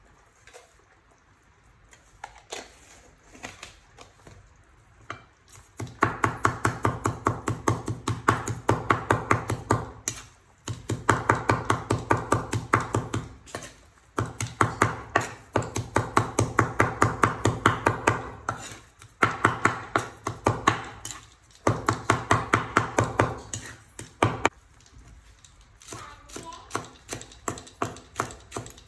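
Steel cleaver chopping and mincing raw prahok paste on a wooden cutting board: rapid, even strokes, several a second, in runs of a few seconds with short pauses. The strokes are softer near the end, as green chilli is chopped into the paste.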